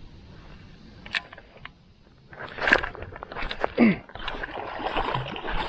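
A bass being hooked and fought from a kayak: a sharp knock about a second in, then from about halfway a jumble of knocks, rustles and water sounds at the hull.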